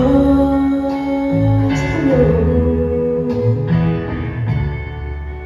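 Music: long held notes over a moving bass line, with a plucked-guitar sound.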